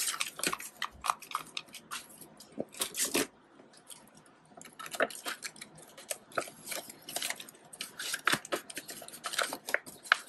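Paper banknotes rustling and crinkling in quick, irregular crackles as a stack of dollar bills is handled and pushed into a tight paper cash envelope, with a short lull about a third of the way in.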